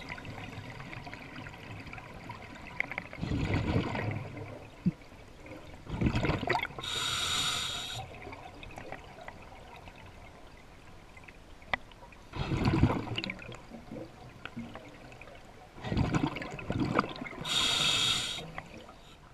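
Scuba diver breathing underwater on an open-circuit regulator: several short bursts of exhaled bubbles gurgling out, and twice a hissing inhale through the regulator, roughly ten seconds apart.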